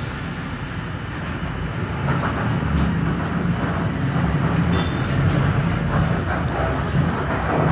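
Diesel engine of a Mercedes-Benz OF 1721L bus running under way with a low hum and rattling, getting louder about two seconds in.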